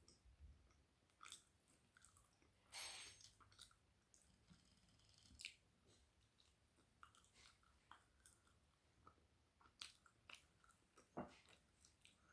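Faint close-up mouth sounds of chewing spiced flatbread: soft, scattered wet clicks, with a louder bite or crunch about three seconds in and another near the end.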